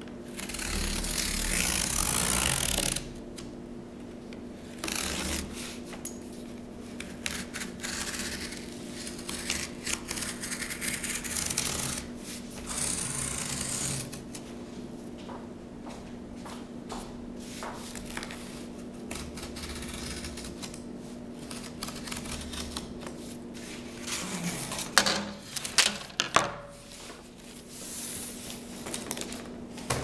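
Repeated cutting sounds: scratchy bursts of a second or two, some with rapid clicks, and a cluster of sharper, louder clicks about 25 seconds in, over a steady low hum.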